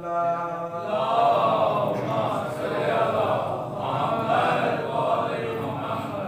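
A man's voice chanting a recitation from a book in long, held notes, with a brief pause near the start.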